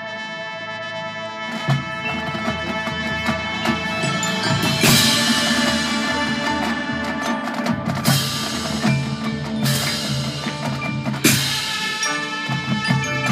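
High school marching band playing sustained brass and woodwind chords over drums, building in volume over the first few seconds. Loud full-band hits come about five, eight, ten and eleven seconds in.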